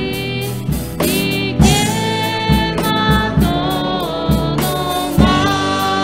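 Voices singing a Spanish hymn, accompanied by strummed acoustic guitars over a steady beat.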